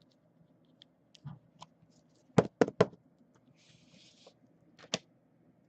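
Trading cards being handled on a table: scattered light clicks, a quick run of three sharp taps about two and a half seconds in, a brief sliding rustle, and one more sharp tap near the end.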